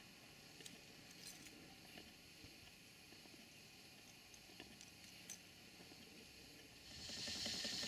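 Near silence with a few faint, scattered clicks, then about seven seconds in a steady steam hiss from the model steam boiler and engine comes up and grows louder.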